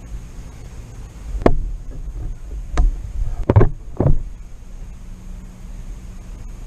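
.25 calibre air rifle being fired: one sharp crack about a second and a half in, then three more sharp knocks over the next two and a half seconds.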